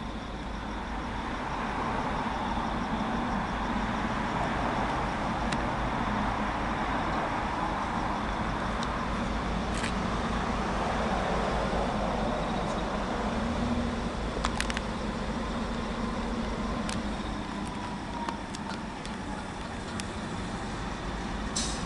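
Diesel locomotives of an approaching goods train, engines running with a steady drone that grows louder over the first couple of seconds. A few sharp clicks come through, about halfway and near the end.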